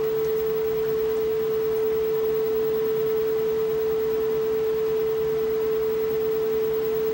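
Steady pure electronic tone, unchanging in pitch and level, with a faint hiss beneath it.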